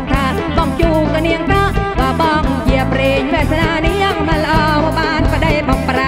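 Kantrum music, the Surin Khmer folk-pop style, playing with a steady pulsing bass beat under a wavering melody line.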